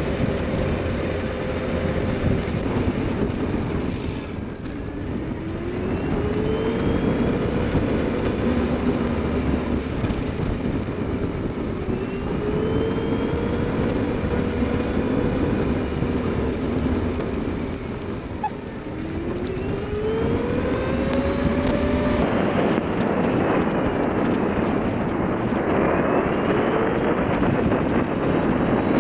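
Motor vehicle riding on a wet road, with steady wind and tyre rush. Under it, the engine note climbs in pitch three times, each climb starting lower after a short dip, as it accelerates through the gears. The rush grows louder in the last few seconds.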